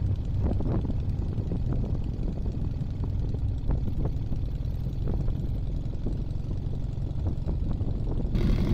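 The engine and propeller of a Team Minimax 1100R ultralight running steadily at low throttle as the plane taxis.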